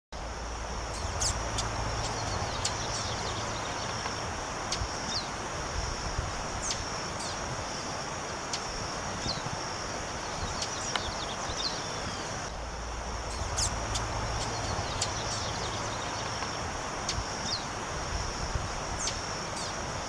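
Female lined seedeater (bigodinho) giving short, high, downward-slurred call notes, irregularly every second or two, over a steady high-pitched insect buzz.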